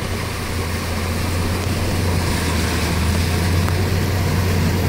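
Truck engine running with a steady low drone while the truck pushes through deep floodwater, under an even rushing wash of water.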